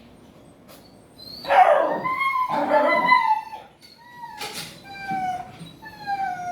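A dog howling and whining in a series of drawn-out calls that slide slightly down in pitch. It starts about a second in with a loud, rough outburst, and the last call is the longest.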